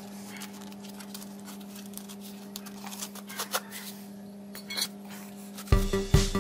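A steady low hum with a few light clinks and taps. Near the end, background music with a strong, regular beat starts abruptly and is the loudest sound.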